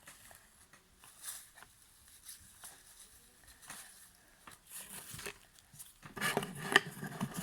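Faint, scattered rubbing and light scraping of hands working paint into craft materials, growing louder and busier about six seconds in.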